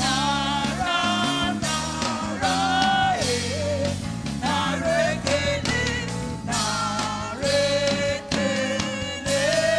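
Live gospel praise music: sung vocals carrying a melody over a band with keyboard, bass and drums playing a steady beat.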